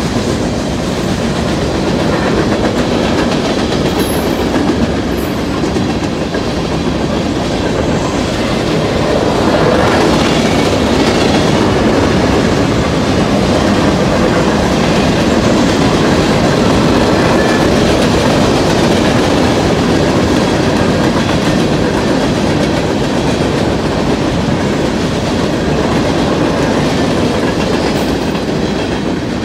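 Freight train cars rolling past: a steady rumble and clatter of steel wheels on the rails as covered hoppers, boxcars and tank cars go by.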